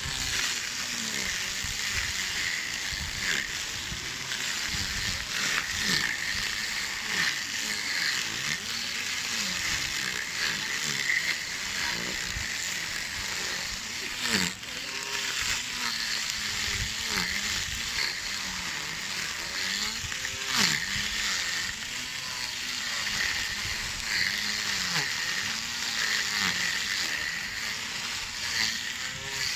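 Small lawn mower running while cutting grass, a steady motor whir and cutting hiss whose pitch dips and recovers every second or two as it meets the grass.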